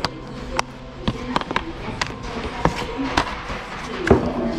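About ten sharp clicks and knocks at irregular intervals, the loudest about four seconds in.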